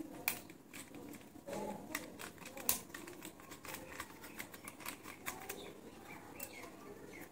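Plastic clicks and knocks of a flexible-leg mini tripod and its phone clamp being handled and screwed together: a scatter of sharp, irregular taps, a few louder than the rest.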